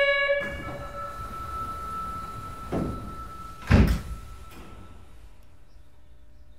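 Subway train's sliding doors closing, heard from inside the car. A warning tone sounds first, a softer knock comes near three seconds in, and the doors shut with a loud thump nearly four seconds in.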